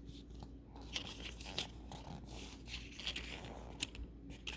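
Small plastic packaging being handled and torn open, with irregular crinkles, crackles and light clicks.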